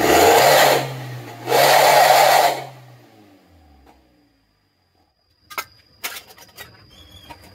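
Toyota Avanza Veloz's four-cylinder engine revved twice through a bolt-on 'suos ngorok' exhaust tip: a loud raspy exhaust note that climbs, holds about a second each time, then falls back. A few sharp clicks follow near the end.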